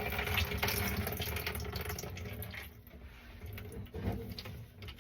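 Dirty water running out of the disconnected dishwasher drain connection at the garbage disposal and splashing into a bucket, dwindling to a trickle about halfway through, with a few light knocks near the end.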